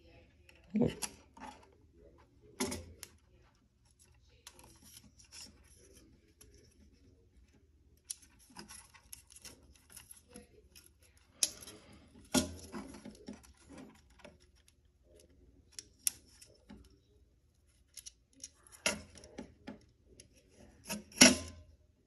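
Hands working a wire through a plastic smoke detector mounting base: irregular light clicks, knocks and rubbing of plastic and wire, with a few louder knocks scattered through.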